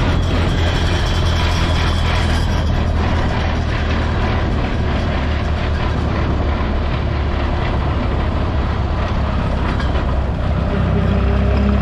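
Gasoline farm tractor engine running steadily under way, heard close from the driver's seat as a loud low drone mixed with road and wind noise, the engine note rising slightly near the end.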